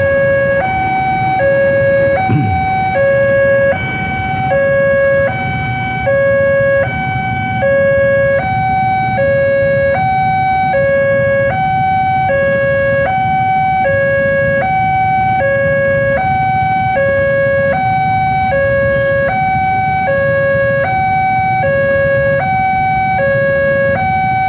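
Railway level-crossing warning alarm sounding, an electronic two-tone signal switching evenly between a lower and a higher note about every three quarters of a second, over the low rumble of idling traffic waiting at the crossing.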